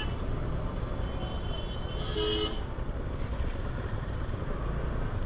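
Steady low rumble of slow, congested city traffic, with one short vehicle horn toot about two seconds in.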